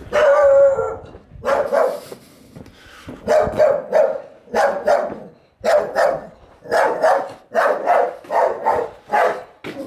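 A dog barking loudly and repeatedly, a longer bark first and then short barks about once a second, often in quick pairs.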